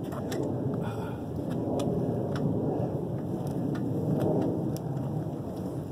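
Wind buffeting the phone's microphone: a steady low rumbling noise, with a few faint clicks scattered through it.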